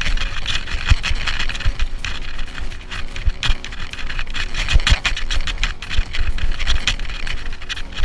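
Mountain bike (Specialized Rockhopper 29er) rolling down a dirt track: tyres crunching and scraping over dirt and loose grit, with irregular low thumps and knocks as the bike runs over bumps, heard from a chest-mounted camera.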